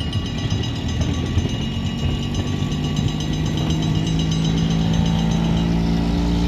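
Small pickup truck's engine pulling across a railroad grade crossing, a low steady hum that starts about two seconds in and grows louder near the end, over the rumble of a train of tank cars rolling away. A faint high pulsing tone, fitting a crossing signal bell, rings through much of it.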